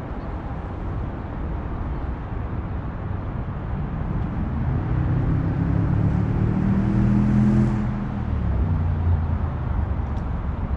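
A motor passes by: its hum swells from about four seconds in, peaks around seven seconds, then drops in pitch and fades a little before the end. Under it runs a steady low rumble.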